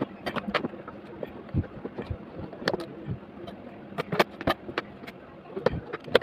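Irregular sharp clicks and taps from hand tools working on an inverter's circuit board, over a steady background hiss.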